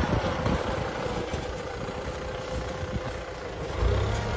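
Kubota M6040 tractor's diesel engine running steadily under load as it pulls a disc plow through dry soil, a constant drone over a low, uneven rumble that swells near the end.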